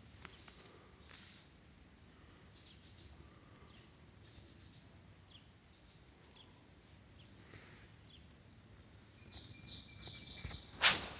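Faint, scattered bird chirps over a quiet steady background hiss, then a brief loud rustle near the end.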